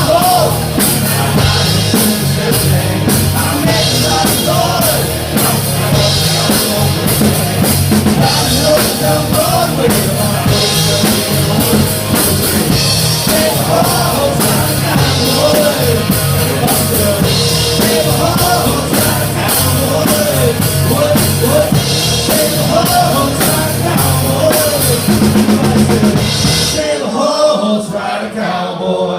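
Up-tempo band music with a full drum kit and bass, and pitched vocal or lead lines over it; the music stops about two seconds before the end.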